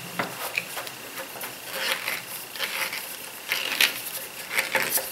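Hand screwdriver being handled and worked into a hole in a wooden workbench: scattered small clicks and short scraping rattles, a few of them louder.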